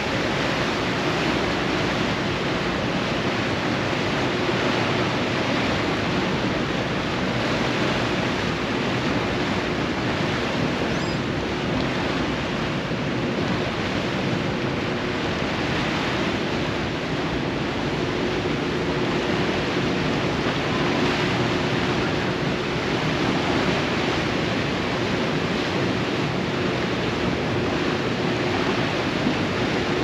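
Steady rushing noise of a ferry's churning propeller wake and wind over the deck, with a faint steady hum underneath.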